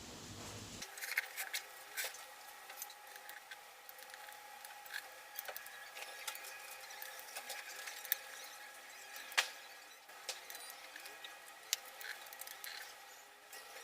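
Scattered light metallic clicks and taps of hand tools working the bolts of a motorcycle engine's clutch-side cover, with one sharper click about nine seconds in, over a faint steady hum.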